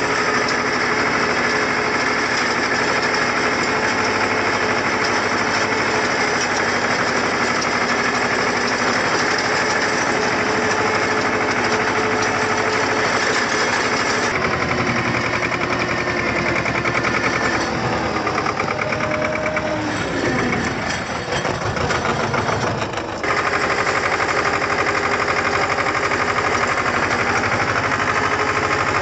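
Farm tractor engine running steadily and loud, heard from the driver's seat. About two thirds of the way through, the engine note falls and the level dips for a few seconds, then the steady running returns abruptly.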